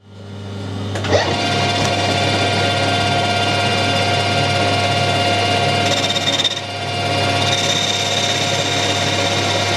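Metal lathe starting up, its spindle coming up to speed in the first second, then running steadily with a low hum and a whine. From about six seconds a higher whine joins as a carbide tool faces the end of the spinning stainless steel bar.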